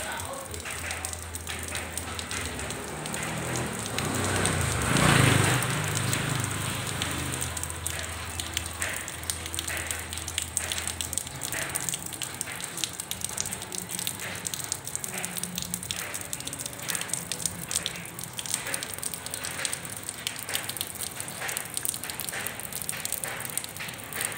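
Rain falling on wet ground and puddles, a steady hiss with many separate drops striking and splashing. About five seconds in the rush swells louder for a couple of seconds.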